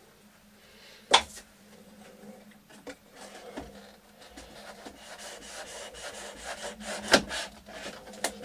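Rubbing and scraping of parts being worked by hand in a 3D printer's frame, as the packed Y-axis assembly is tried for a way out, with a sharp knock about a second in and another near the end.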